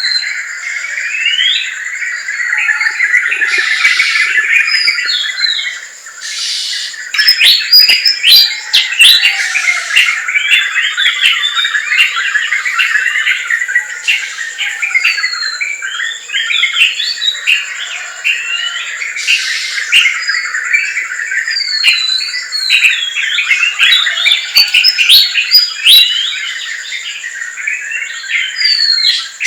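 Dense chorus of many forest birds chirping and calling at once, quick overlapping chirps and whistles with no pause, over a steady high-pitched whine.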